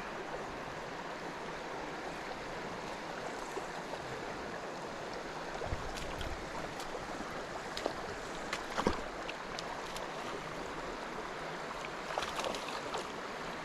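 Steady rush of river water flowing over the riffles, with a few short sharp sounds about halfway through and near the end.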